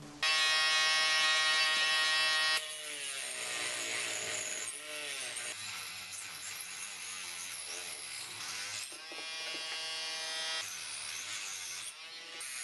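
Small handheld rotary tool with a cut-off disc, whining at a high steady pitch for about two and a half seconds, then lower and rougher while the disc cuts through a plastic doll leg. A second steady whine about nine seconds in lasts a second and a half.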